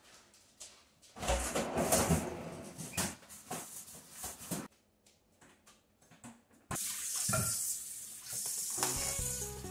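Groceries being handled and put away, with rustling and knocks, then a kitchen faucet that comes on suddenly about two-thirds in and runs steadily into the sink as raw chicken pieces are rinsed under it.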